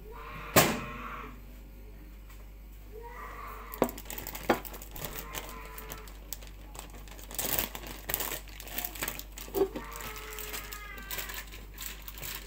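Kitchen handling noises: a sharp knock about half a second in, a couple of lighter knocks around four seconds, then plastic bag crinkling and rustling in the middle and toward the end.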